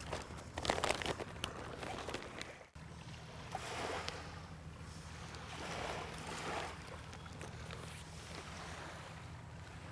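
Sailcloth rustling, with sharp clicks, as a furled sail is wrapped and handled around the mast. It then gives way abruptly to faint outdoor ambience with a steady low hum and two soft swells of rustling.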